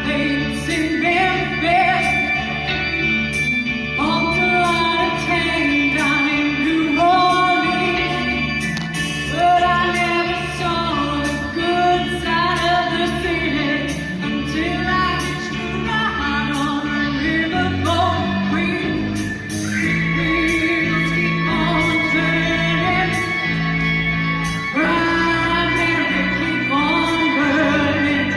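A choir singing a pop song live with a band accompaniment, sustained melody lines over bass and a steady beat.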